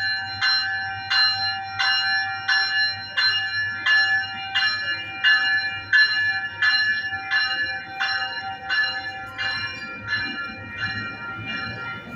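Passenger train's warning bell ringing in a steady rhythm of about three strikes every two seconds, fading slightly toward the end, as the train gets under way. A low train rumble runs beneath the bell.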